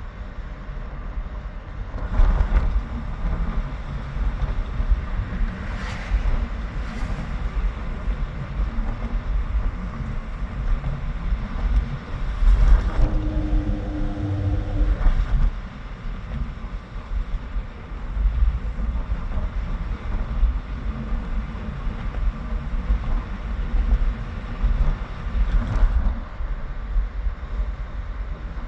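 Gusty wind buffeting the microphone with a steady low rumble. Several louder swells rise and fade, about 2, 6, 13 and 26 seconds in, like vehicles passing. The one near 13 seconds carries a brief engine-like hum.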